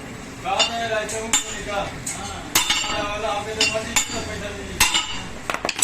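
Metal tools and parts clinking against each other in irregular, separate sharp strikes, as they are handled during a motorcycle crankshaft repair.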